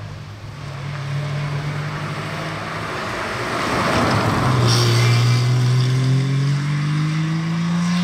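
Classic rally car engine coming past close by: a rush of tyre and air noise as it goes by about four seconds in, then the engine pitch climbing steadily as it accelerates away under load.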